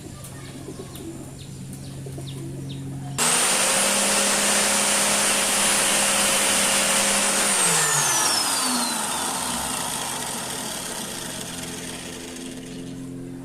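An electric power tool's motor is switched on about three seconds in, giving a high whine over a loud rushing hiss. It runs steadily for about four seconds, then is switched off and winds down, the whine falling in pitch as the hiss slowly fades.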